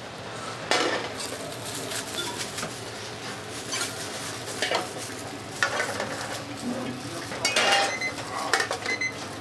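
Metal ladle and utensils clanking against stainless-steel pots and pans as dumpling soup is ladled out and steamed dumplings are lifted from a steamer, in irregular knocks and clinks.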